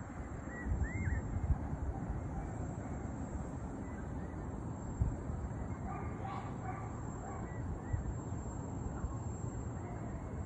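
Steady night-time city background noise with a few distant animal calls, the clearest cluster about six seconds in; a couple of low thumps hit the microphone in the first two seconds.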